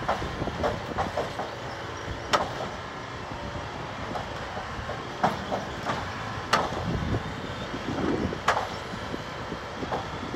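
Railroad tie inserter at work, its engine running steadily, with several sharp clanks at irregular intervals as it pushes a new wooden tie into place under the rail.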